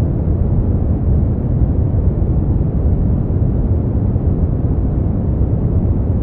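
Brown noise: a steady, deep rumbling hiss with most of its weight in the low end and little above the upper mids, unchanging throughout.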